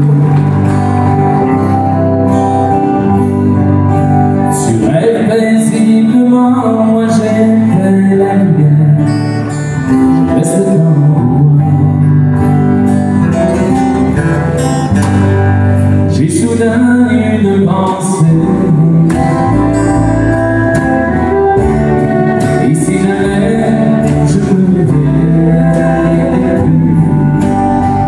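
Country song performed live: a man singing with acoustic guitar strumming and a small banjo-ukulele, a deeper low end joining a little past the middle.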